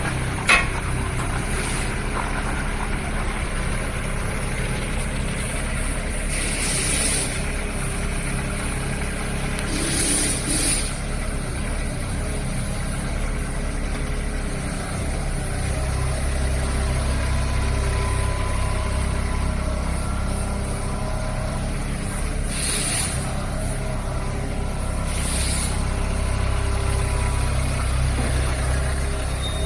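Mini excavator engine running steadily, its low hum growing heavier about halfway through, with four short hissing bursts along the way.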